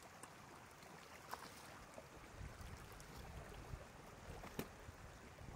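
Faint trickling and splashing of shallow water, with a few small sharp clicks and a low rumble on the microphone from about two seconds in.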